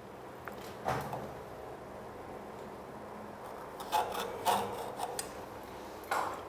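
A carpenter's square and pencil being worked against wooden board to mark a line: a few short knocks and scrapes of tool on wood, one about a second in and a cluster later.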